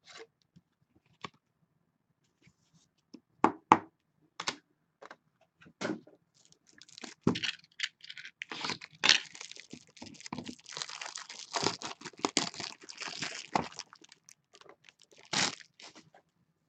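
Trading cards and their packaging being handled: a few scattered taps and clicks, then about seven seconds of crinkling and rustling, and one more short rustle near the end.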